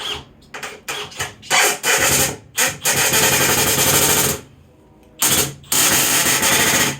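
Power drill running in three bursts of a second or so each, after a few short trigger blips, as it drives screws into the wooden frame.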